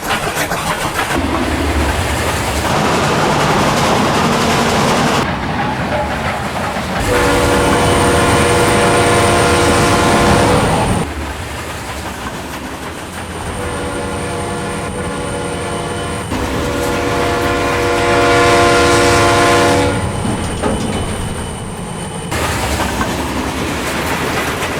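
Sound effects of locomotives running at speed, the running noise changing abruptly several times. A train horn sounds three long blasts of several notes at once through the middle.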